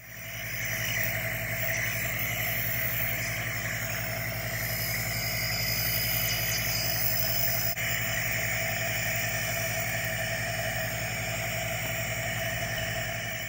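Nebulizer compressor running steadily, a motor hum with a hiss of air as it aerosolises medication into the face mask for a breathing treatment.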